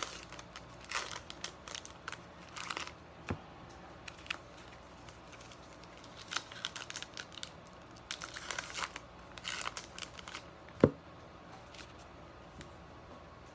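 Plastic wrapping of a baseball card blaster box and its packs crinkling and tearing in irregular bursts as it is opened, with one sharp knock about eleven seconds in.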